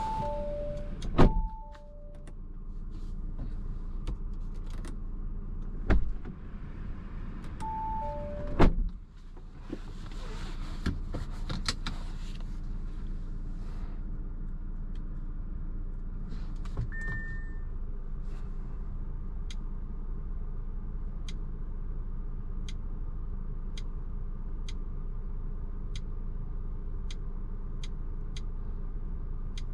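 Inside a 2021 Audi Q5's cabin: falling two-note warning chimes, and heavy thumps of doors shutting about a second in and twice more within the next eight seconds, over a steady low hum of the car. Later a single short higher beep sounds, then a regular light ticking, about one tick every three-quarters of a second.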